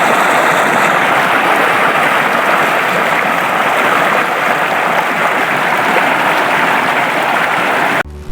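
Loud, steady rushing noise that stops abruptly near the end.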